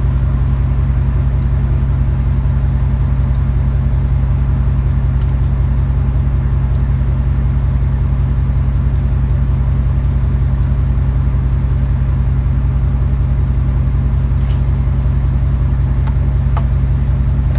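Steady low rumble of a truck running, heard from inside the cab.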